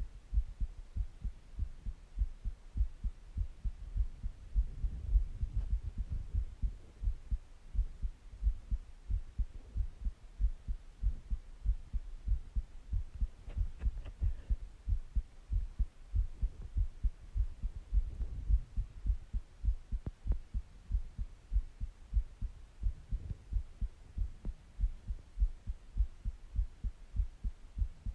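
Human heartbeat: a steady, even run of low lub-dub thumps, with a soft low swell of breathing underneath twice.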